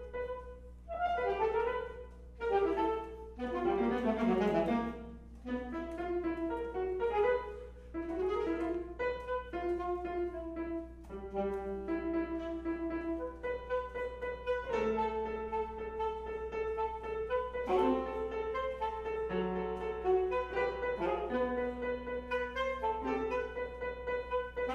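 Alto saxophone and piano duo playing contemporary classical music. Busy, loud piano chords and quick saxophone figures in the first few seconds give way to longer held saxophone notes over the piano.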